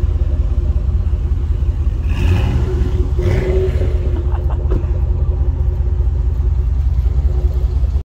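Chevrolet Trailblazer SS's 6.0 L LS2 V8 idling through an aftermarket exhaust, a loud, steady low rumble from the tailpipe.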